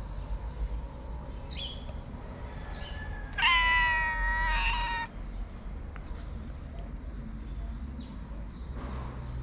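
Stray cat meowing once: a single long meow about three and a half seconds in, lasting nearly two seconds at a steady pitch.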